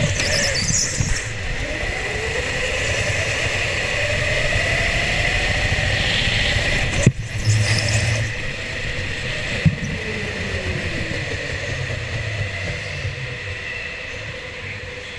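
Go-kart running flat out from on board, its motor pitch rising and falling as it goes through the corners, with a steady high whine. A sharp knock about seven seconds in and a smaller one near ten seconds.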